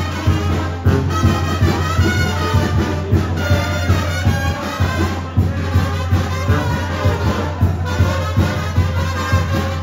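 Music led by brass instruments, playing continuously.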